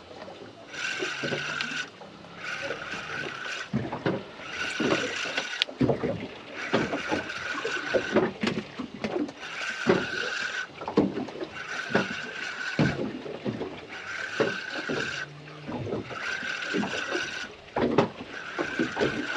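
Spinning reel cranked in short bursts as a hooked fish is pumped up and wound in: the reel's gears whir for about a second at a time, roughly every two seconds, about nine times. Scattered knocks and water splashes are heard between the bursts.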